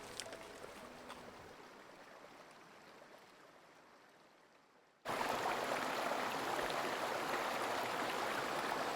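The tail of a piece of music fades away over the first few seconds. Then the steady rush of a flowing stream cuts in suddenly about five seconds in.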